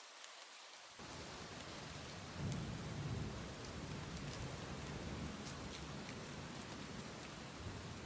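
Steady rain with the crackle of individual drops hitting a surface, and a low rumble of distant thunder that comes in about a second in and swells loudest around three seconds in before settling to a steady growl.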